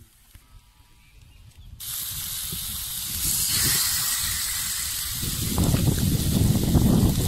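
Masala-coated fish steaks sizzling on a hot iron griddle: a steady hiss that starts suddenly about two seconds in, with a louder low rumbling joining past the five-second mark.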